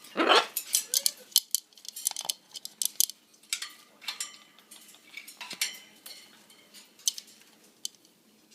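Pet bird playing with its toys: many sharp clicks and clinks, with a short harsh call right at the start and a weaker one about a second in.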